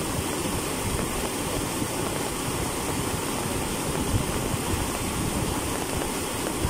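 Muddy floodwater rushing and churning steadily over a submerged road and concrete culvert pipes.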